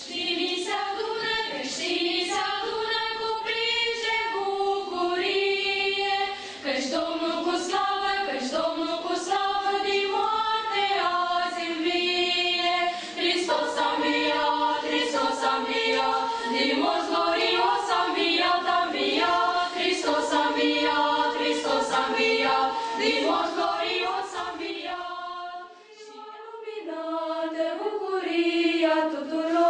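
Choir of girls and young women singing together unaccompanied, several sustained voices at once. The singing breaks off briefly near the end and then starts again.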